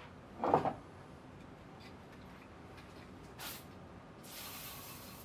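Aerosol spray lubricant being sprayed from a can: a brief hiss about three and a half seconds in, then a longer hiss of about a second near the end. A short, louder sound comes just after the start.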